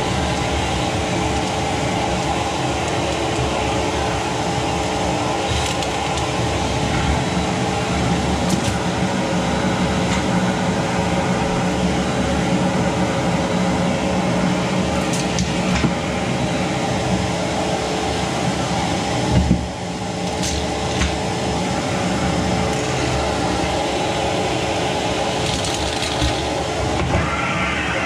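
Rowenta vacuum cleaner running steadily with a constant whine, its wand nozzle drawn over a wooden parquet floor. A few light knocks, and the sound dips briefly about two-thirds of the way through.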